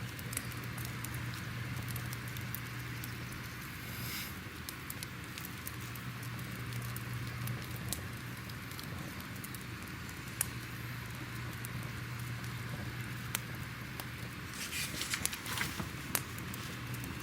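Crackling fire: a steady hiss dotted with frequent small pops and crackles, a burst of louder crackles near the end, over a low steady hum.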